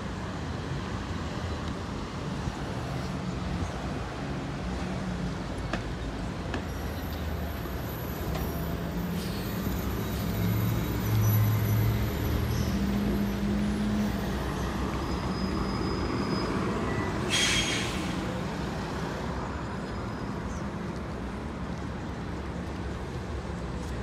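Street traffic with transit buses passing close by. A bus engine's low drone swells loudest a little before halfway through, and a short air-brake hiss sounds about two-thirds of the way through.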